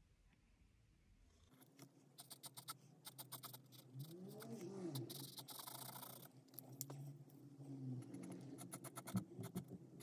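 Marker pen working on the canvas: a run of light taps and clicks, with a stretch of scratchy nib strokes about five seconds in. Faint rising-and-falling tones sound under it a few times.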